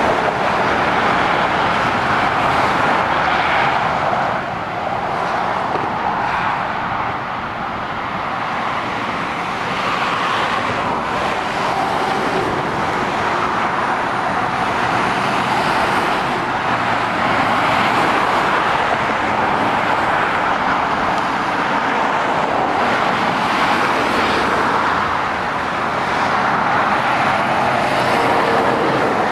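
Motorway traffic of lorries and cars passing below, mostly steady tyre roar that swells and eases as vehicles go by.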